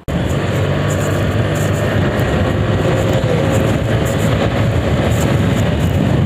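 Suzuki scooter being ridden along a road at cruising speed: a steady engine and road drone with wind rushing over the microphone.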